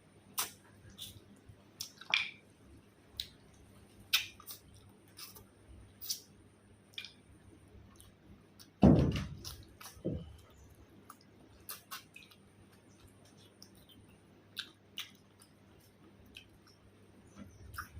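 A person eating close to the microphone: scattered wet mouth smacks and clicks of chewing. There is one loud low thud about nine seconds in and a smaller one about a second later.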